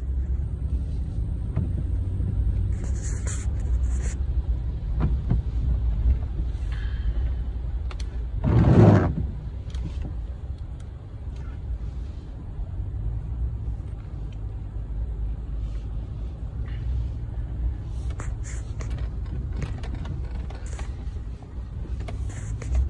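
Steady low rumble of a pickup truck's engine and tyres heard from inside the cab while driving through standing floodwater, with one louder rushing sound about nine seconds in.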